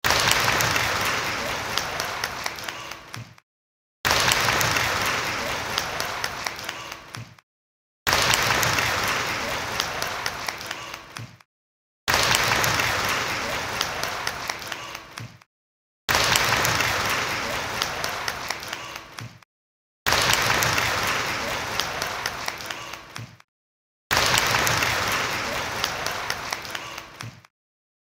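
Applause from a group of people clapping, loud at first and thinning out until single claps stand out. The same short burst of about three and a half seconds repeats seven times, each followed by a brief silent gap.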